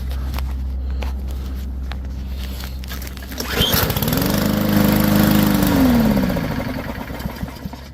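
A steady low hum, then about three and a half seconds in the Powermore engine of a Yard Machines push mower is pulled over, catches and speeds up, runs for about two seconds, then winds down and dies. It fires on the prime but won't keep running, which the owner takes for a pathway in the carburetor that is still clogged.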